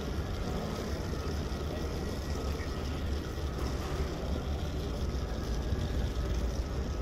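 Steady background noise of a large airport hall: a low rumble with a hiss over it and no distinct events.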